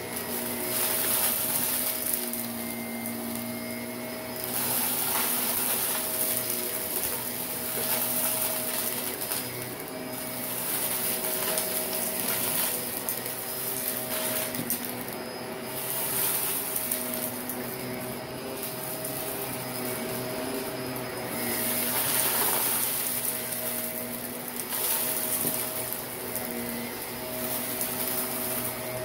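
Shark Navigator upright vacuum running with its brush roll turning, pushed back and forth over a carpet rug strewn with fine dirt and grit. Over the steady motor hum, the dirt crunches and rattles up the nozzle in stretches that swell and fade every few seconds with each stroke.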